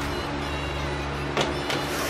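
Background music with steady held tones, and two short sharp clicks near the end.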